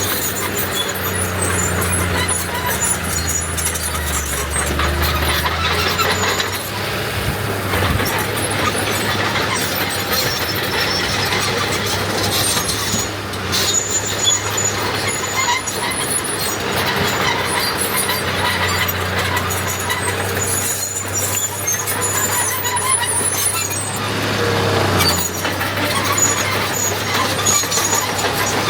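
Diesel earthmoving machinery at work, a bulldozer and dump trucks filling land. A low engine drone swells and eases twice, under scattered high metallic squeals and clanks.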